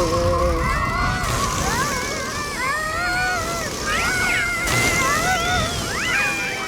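Cartoon soundtrack: music mixed with high, sliding squeaks and chirps, in many short overlapping rises and falls.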